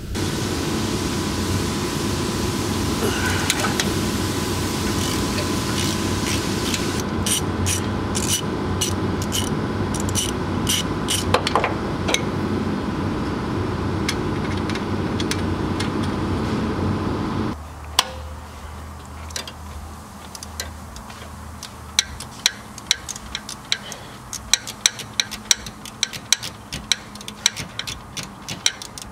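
Socket wrench work on the alternator's 12 mm mounting bolts: a long stretch of loud, steady noise with scattered clicks cuts off abruptly about 17 seconds in. After that comes a run of quieter, evenly repeating ratchet clicks.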